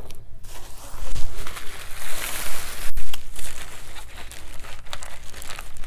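Plastic bag rustling and crinkling as it is handled and a small plastic container is pulled out of it, with light clicks and knocks of the handling.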